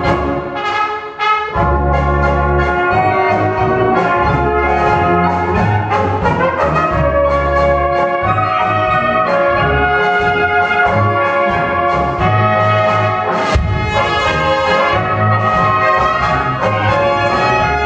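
Brass band playing a polka live, with a tuba bass line and trumpets and trombones on the melody. Two trumpets lead from the front. The band drops back briefly about a second in.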